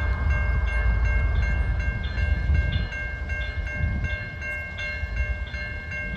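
CSX freight train M209 rumbling past at a grade crossing. A crossing bell dings rapidly and evenly above the train.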